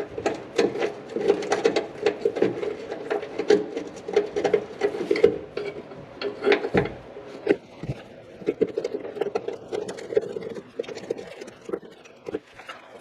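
Hand tools and metal exhaust parts being worked during an axle-back exhaust install: rapid, irregular clicking and rubbing with occasional sharper knocks. It eases off and grows quieter in the last couple of seconds.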